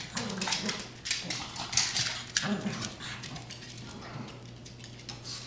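A pug and a Chihuahua play-wrestling: scuffling and pawing on a fleece dog bed, with short throaty noises from the dogs. The scuffle is loudest in the first half and dies down after about three seconds as they break apart.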